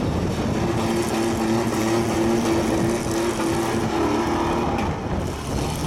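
Demolition derby truck engines running loudly, one held at steady high revs for about four seconds.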